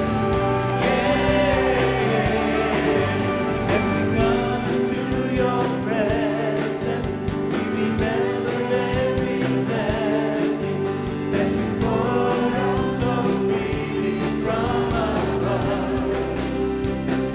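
Live gospel-style worship song: several singers in harmony over a band with acoustic guitar, drums and saxophones.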